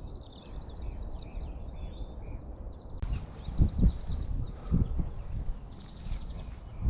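Several small birds singing and chirping, with quick trills, over a low rumble. There are a couple of dull thumps about halfway through.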